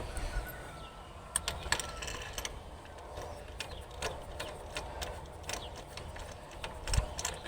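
Scattered light clicks and small rattles of hand tools and engine parts being handled, spaced irregularly a second or so apart.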